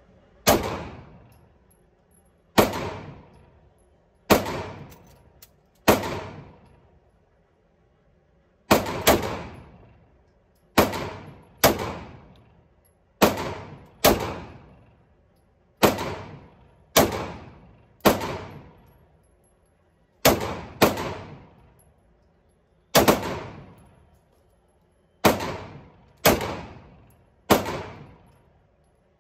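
Semi-automatic pistol firing at an indoor range: about two dozen shots at an uneven pace, some single and some in quick pairs. Each sharp report rings on in the echo of the hard-walled range and fades within a second or so.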